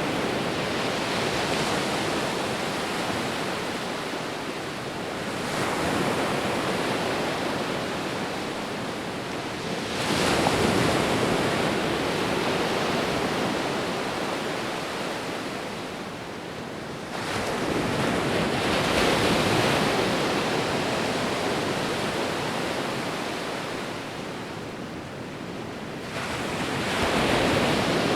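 Sea waves breaking on a shore. Four times the rushing surf swells up suddenly as a wave breaks, then slowly fades as it washes back, with the next wave following after about five to nine seconds.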